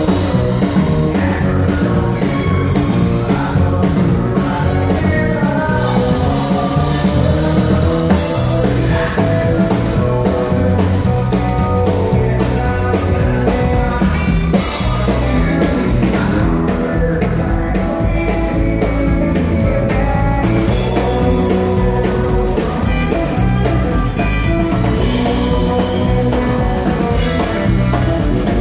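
A live country band playing: acoustic and electric guitars, fiddle, bass guitar and drums, with a steady beat.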